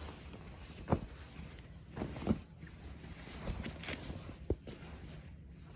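Parcel packaging being handled: several soft knocks and some rustling over a low steady hum.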